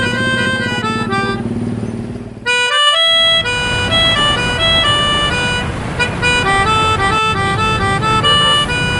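Bus 'telolet' musical air horn playing a fast tune of shifting multi-tone notes, with the bus engine running underneath. The tune breaks off for a moment a little under three seconds in, then carries on.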